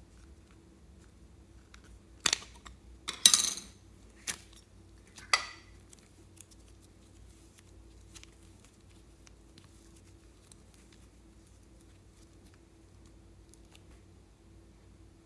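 A small hard-plastic clay container being handled and opened: a few sharp plastic clicks and snaps in the first half, the loudest about three seconds in. Then only faint soft ticks as the soft clay is handled.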